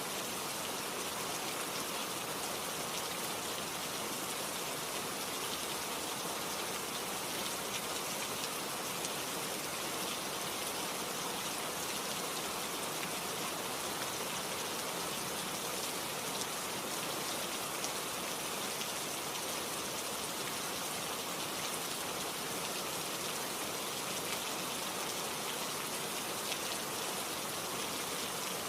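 Heavy, steady rain: a dense hiss of rain falling on surfaces, with many fine individual drop ticks.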